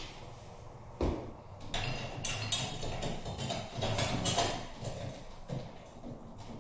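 Handling noises of a wall sconce being fitted at the wall: a sharp knock about a second in, then a few seconds of irregular clattering and rustling of the fixture, wires and mounting bracket, quieter near the end.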